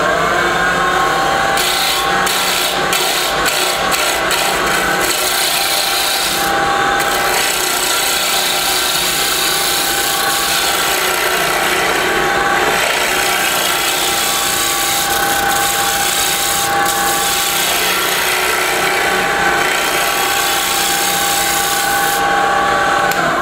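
A bowl gouge cutting a spinning bocote blank on a wood lathe: a steady scraping hiss of wood being shaved as the front of a small pendant is shaped into a gentle curve, with a steady whine running under it.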